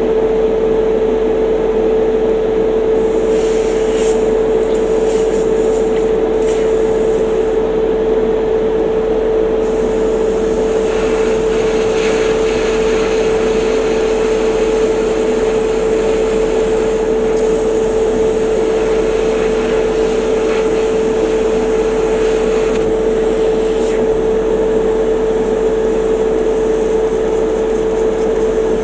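Small electric motor running steadily with a constant hum and an airy hiss; the hiss shifts in strength now and then.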